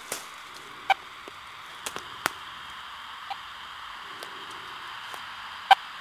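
Steady static hiss from a radio-telemetry receiver, with several irregular sharp clicks and snaps; the loudest comes about a second in and another near the end.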